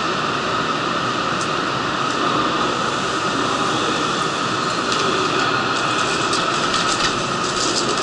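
Steady hum of a Kyushu Shinkansen train standing at the station platform, with light clicks and ticks coming in over the last few seconds.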